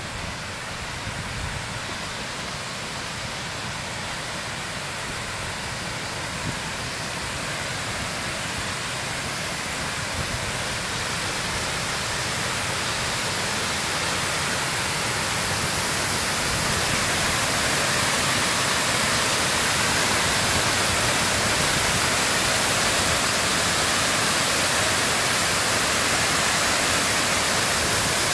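Water spilling over the crest of a stone masonry dam and cascading down its face: a steady rush that grows louder through the first two-thirds and then holds.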